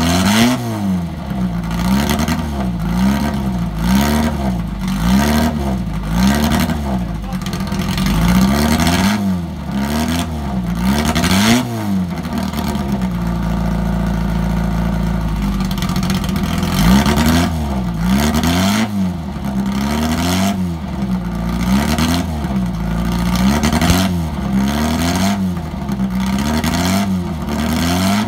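Vintage open-wheel racing car's engine being warmed up, the throttle blipped over and over, about one rev a second. For a few seconds in the middle it settles to a steady idle, then the blipping starts again.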